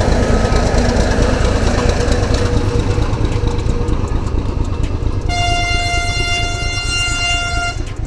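Loud rumbling road noise, with a vehicle horn sounding one long steady note for about two and a half seconds a little after the middle.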